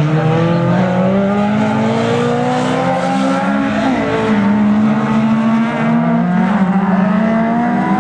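Several saloon race cars running at full throttle, more than one engine heard at once, each note climbing through the revs and dropping back at gear changes, around the middle and again later.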